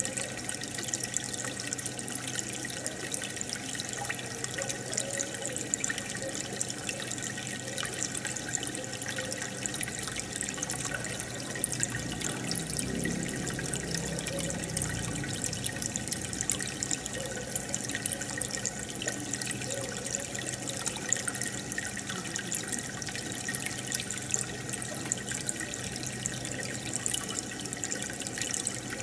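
Aquarium aeration bubbling and trickling steadily: air bubbles rising in the tank and breaking at the water surface, with a fine crackle of popping.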